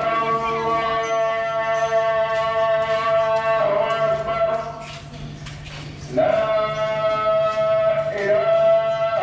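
Singing: a voice holding long, sustained notes, with a short break about five seconds in before a new phrase glides up into the next held note.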